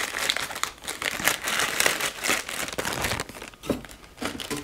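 Thin clear plastic bag crinkling as it is handled and opened, a dense run of irregular crackles.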